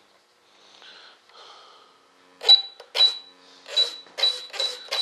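A small radio-control servo is driven back and forth from the transmitter. About two and a half seconds in, a string of short whirs starts, roughly two a second, each with a thin high whine.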